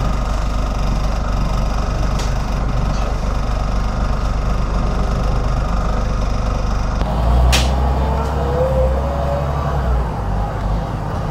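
LAZ A183D1 diesel city bus running, a steady engine drone with road noise. About seven and a half seconds in comes a brief sharp hiss, and then a rising whine as the engine's drone gets heavier.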